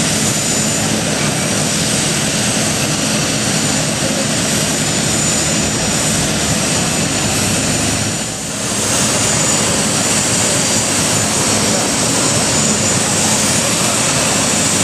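Steady cabin noise inside an Airbus A380: an even rush of air and engine sound with a low hum under it, dipping briefly about eight seconds in.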